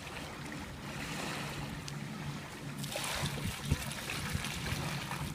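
Wind on the microphone with a steady low hum. About three seconds in comes a short rush, then a single knock, as sand is tipped out of a plastic bucket.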